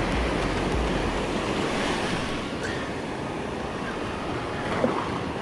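Ocean surf breaking and washing up the beach, a steady rushing noise, with one short click just before the end.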